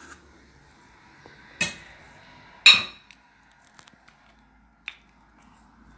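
A metal spoon clinking against kitchenware: two sharp clinks about one and a half and two and a half seconds in, the second louder with a brief ring, then a faint tick near the end.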